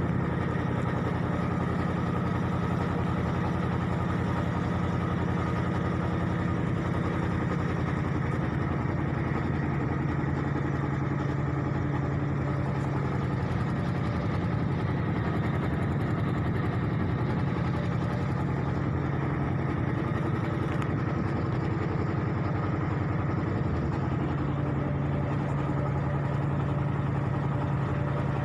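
Boat engine running steadily, a continuous low drone whose pitch shifts slightly about ten seconds in.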